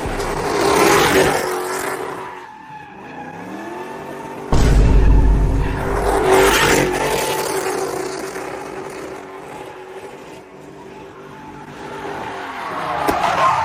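A car's 5.7-litre Hemi V8 exhaust, revved hard twice with the engine pitch falling away after each rise. A heavy low rumble cuts in suddenly about four and a half seconds in.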